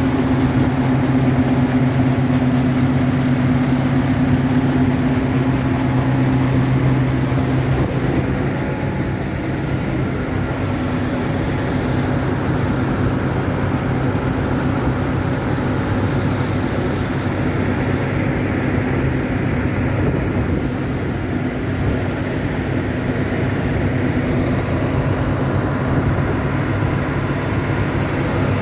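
Farm harvest machinery's engine running steadily, with a strong low hum that eases off about eight seconds in, leaving a rougher, more even machine noise.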